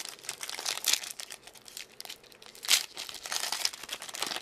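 Foil wrapper of a 1999 Upper Deck football card pack crinkling and rustling as it is handled, with louder crackles about a second in and near three seconds in.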